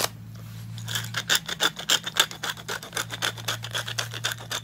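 Pepper mill grinding peppercorns: a rapid rasping crunch in quick, even strokes, starting about a second in.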